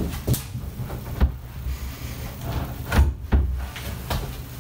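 Heavy solid Douglas fir desk being shifted and pushed into place, giving a series of dull thumps and wooden knocks against the wall and floor.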